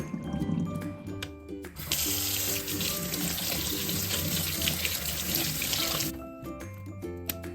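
Water running hard from a tap into a sink, as in rinsing the microwave filter. It starts abruptly about two seconds in, runs steadily for about four seconds and cuts off suddenly, over background music.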